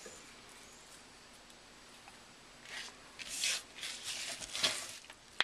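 Chopped kale leaves rustling and crunching in bursts as they are packed by hand into a blender jar, followed by one sharp click near the end.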